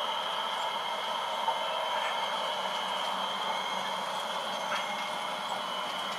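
H0e narrow-gauge model train running along the track: a steady high whine from the locomotive motors over an even rolling hiss of the wheels, with a couple of faint clicks.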